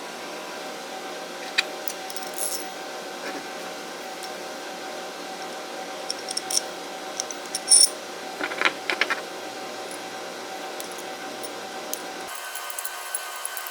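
Scattered light metallic clinks and taps, loudest and busiest a little past the middle, of small steel parts and hand tools being handled, over a steady faint hum.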